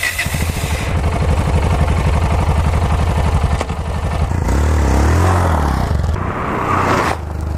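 Yamaha XT660Z Ténéré's single-cylinder engine running with an even beat, then revving up and down about halfway through as the bike pulls away on loose dirt.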